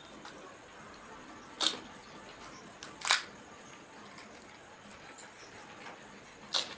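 Crisp pani puri shells crunching: three short, sharp crackles a second or more apart, over a faint steady hiss.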